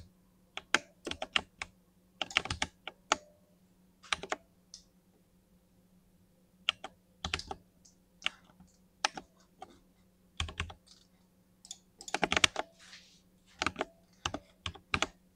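Typing on a 60% mechanical keyboard with lubed linear switches: irregular runs of keystrokes separated by short pauses.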